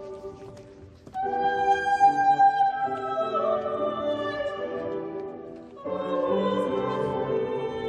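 Church organ playing slow, sustained chords that change about a second in and again near six seconds.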